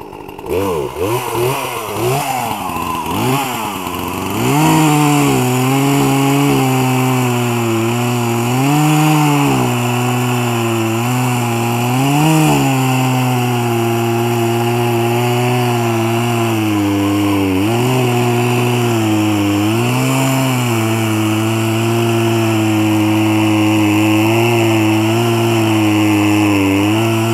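Chainsaw revved up and down a few times, then cutting through a log at a steady high pitch under load, the pitch briefly rising now and then.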